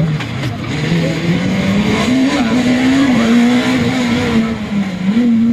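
Rally car engine revving hard at speed, its pitch falling and rising with gear changes and corners.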